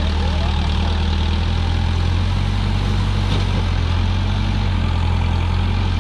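Massey Ferguson backhoe loader's diesel engine running at a steady speed.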